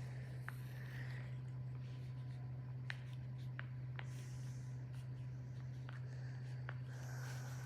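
Faint scratching of a pen drawing on paper, in short strokes with a few light taps, over a steady low hum.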